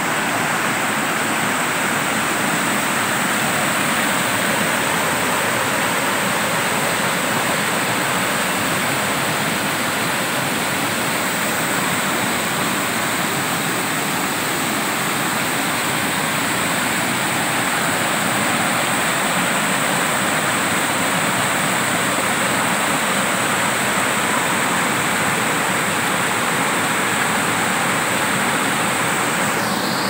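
Small waterfall and cascades on a rocky stream, water rushing steadily over the boulders in a loud, even wash of sound.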